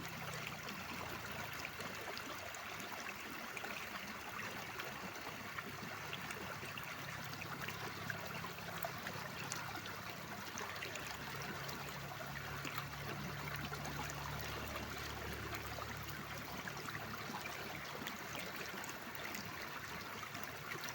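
Mountain stream flowing steadily: a continuous trickle with many small splashes, unchanging throughout.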